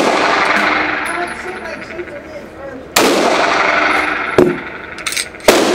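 Gunshots at a shooting range, each one followed by a long echoing decay: a loud shot about three seconds in, lighter shots at about four and a half and five seconds, and another loud shot near the end.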